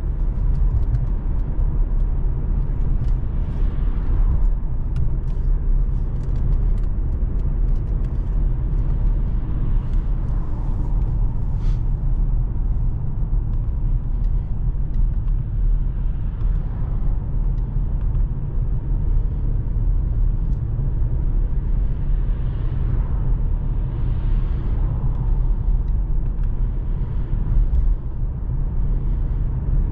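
2020 Mercedes-AMG C43's 3.0-litre twin-turbo V6 and tyres on the road while driving: a steady low rumble, with a few faint notes that rise and fall in pitch every several seconds.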